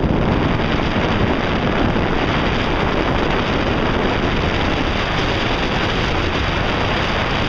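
Steady rush of wind buffeting the microphone while travelling along a road, mixed with the vehicle's road noise.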